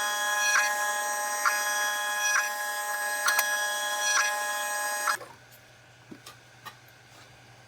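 Laser engraver's stepper motors whining steadily as the head rasters back and forth, with a tick at each reversal about once a second; it stops abruptly about five seconds in, leaving a faint hum and a few light clicks.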